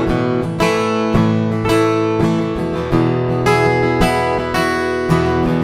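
Background music of strummed acoustic guitar chords, ringing on between strums.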